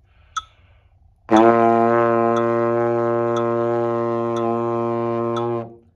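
Trombone played with the slide all the way in, one steady low note held for about four seconds as a sustained long-tone exercise, easing slightly softer before it stops. A metronome ticks once a second throughout.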